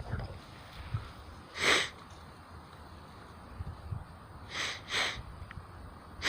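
Short sharp sniffs of breath: one about two seconds in, then two in quick succession near the end.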